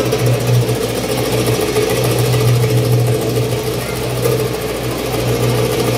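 A loud, steady low drone with a slight waver, with no beat or clicks over it.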